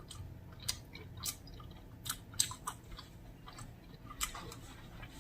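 A person chewing food with the mouth close to the microphone: a string of short wet smacking clicks at an uneven pace.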